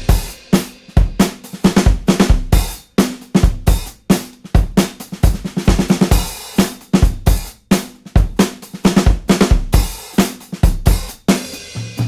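Background music: a solo rock drum kit break, with kick drum, snare and cymbals in a fast, busy pattern.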